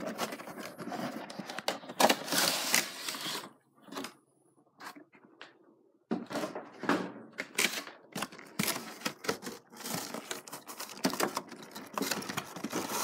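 Cardboard collection box being opened and handled, rustling and scraping, then a pause of about two seconds. After that, a clear plastic blister tray is handled, with many short, sharp clicks and crinkles.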